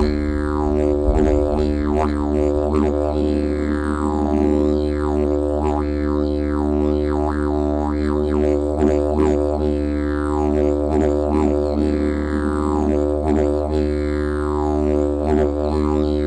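Music built on a steady low drone, its overtones sweeping down in pitch again and again, about once or twice a second.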